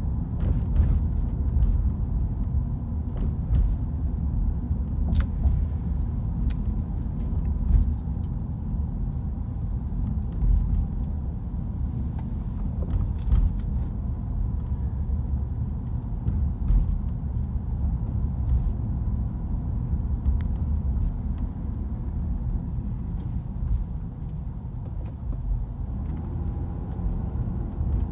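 Road and engine noise inside a moving car's cabin: a steady low rumble with scattered faint clicks.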